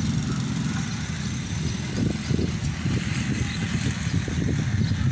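Small motorcycle engine running close by, then pulling away; the engine sound grows more uneven from about two seconds in.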